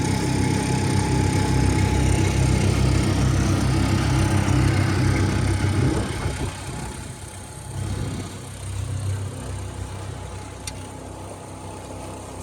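Small 5-horsepower outboard motor running steadily, then dropping to a quieter, lower run about halfway through.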